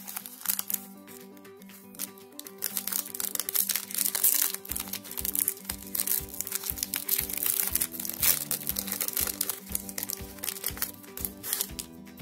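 Foil Pokémon TCG booster pack wrapper crinkling and crackling as hands pull it open, over background music whose low beat comes in about halfway through.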